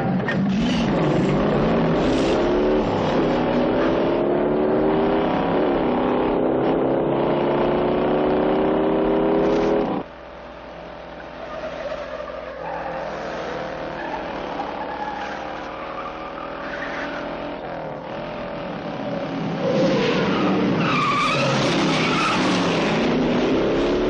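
1968 Dodge Charger's V8 accelerating hard, its pitch rising through the gears. About ten seconds in it drops to a fainter, more distant engine sound. Tires squeal loudly near the end, with the engine revving up again.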